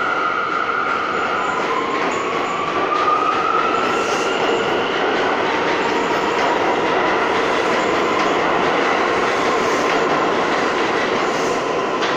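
Subway train pulling out past the platform: steady rolling and clatter of steel wheels on the rails, with a high whine that rises in pitch from about one to three seconds in, then holds steady as the last car goes by.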